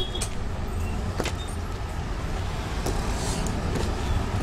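A few sharp clicks from metal clip hangers as trousers on them are handled, over a steady low background rumble.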